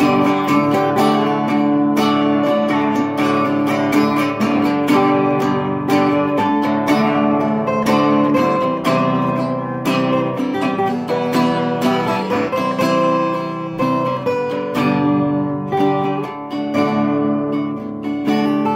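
Two acoustic guitars playing together in an instrumental passage, strumming chords with no singing.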